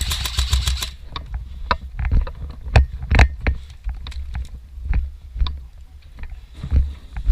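A short rapid burst of airsoft gun fire, about a dozen quick shots in the first second, followed by scattered single clicks and knocks over a low rumble of movement and handling on the microphone.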